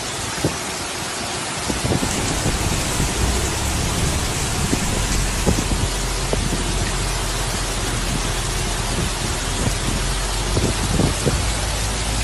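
Heavy rain pouring down steadily, a dense even hiss with a few sharp taps scattered through it. A low steady rumble joins underneath a few seconds in.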